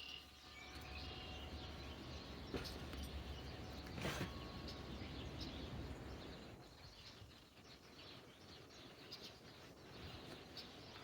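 Faint background noise with a few bird chirps and a single knock about four seconds in; no drill is running.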